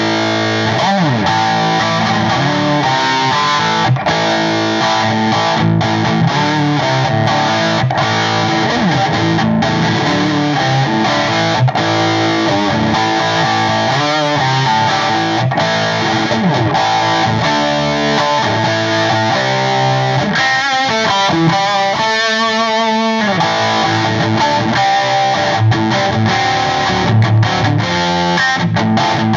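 1962 Gibson Les Paul (SG-bodied) electric guitar played through a Cornford Roadhouse 50 amp and 4x12 cabinet, a continuous run of notes and chords with sliding pitches. A little past two-thirds through, the notes waver with wide vibrato for a few seconds.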